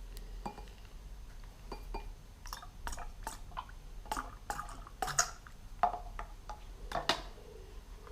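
Liquid dripping and splashing, with a string of small clicks and knocks, the loudest near the end, as a Jaguar cylinder head's freshly fitted valves are tested for leaks with liquid.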